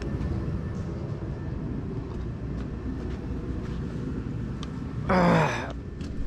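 Steady roar of a forced-air shop heater running. About five seconds in, a man gives a short grunt with a falling pitch.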